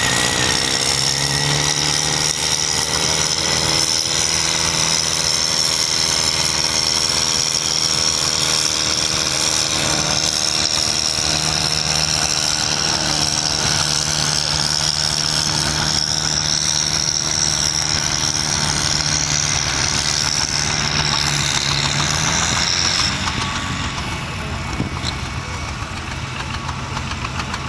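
Diesel farm tractor engine running hard under load as it drags a weight-transfer pulling sled, a steady engine drone with a high whine over it. The engine eases off about 23 seconds in as the pull ends.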